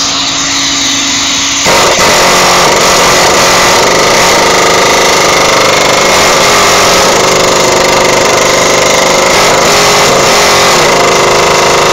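Pneumatic air hammer driving a Vibroshock impact adapter into a ratchet and 14 mm socket on a dry, rusted lawn mower blade bolt, hammering continuously to shock the seized bolt loose. It starts about a second and a half in, after a quieter steady hum.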